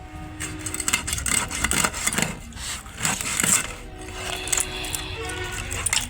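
Fish being cut with a blade: irregular sharp knocks, clicks and scraping as the blade works through the fish.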